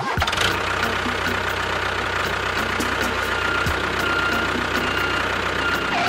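Mini tractor's motor running steadily: a fast, even pulsing drone with a thin steady whine above it.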